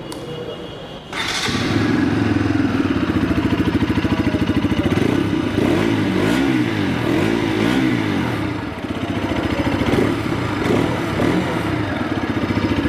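Bajaj Pulsar RS200's 199.5 cc single-cylinder, four-stroke, liquid-cooled fuel-injected engine starting about a second in and then idling with a steady pulse. The throttle is blipped a few times in the middle and once more later, giving the exhaust growl.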